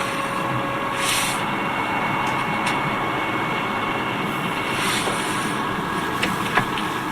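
Audi A4L being driven, with a steady droning hum from the front end, the noise the owner complains of; the dealer suspects the transmission.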